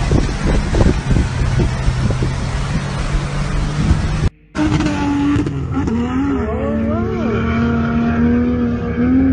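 Loud rushing floodwater with voices calling over it. After a sudden cut, a 4x4's engine runs hard at steady high revs as it climbs a sand dune.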